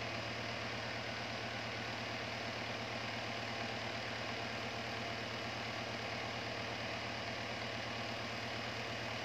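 Small electric desk fan running steadily: a low motor hum under an even rush of air.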